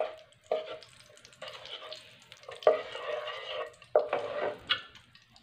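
Wooden spoon stirring and scraping melting ghee around a non-stick karahi, in several separate strokes, with a light sizzle of the hot fat.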